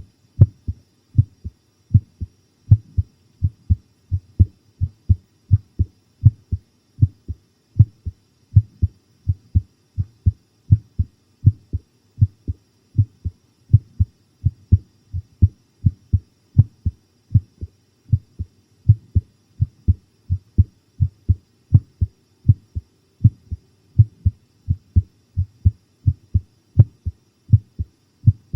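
A human heartbeat recorded close up: a steady run of low lub-dub double beats, a little faster than one beat a second. It is pounding ('baku-baku') from fright.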